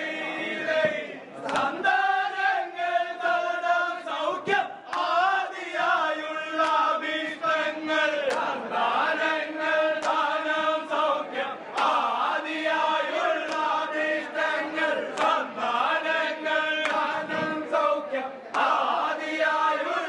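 A group of men chanting together in unison, holding long sung notes, with a few sharp knocks or claps now and then.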